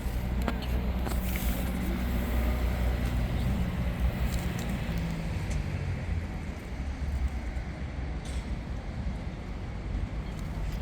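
A motor vehicle's engine running close by, a steady low hum that fades away after about six seconds, over street background noise.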